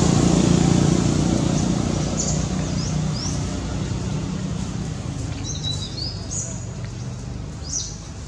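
A motor engine hums steadily and fades slowly away. Short high bird chirps come in from about two seconds in.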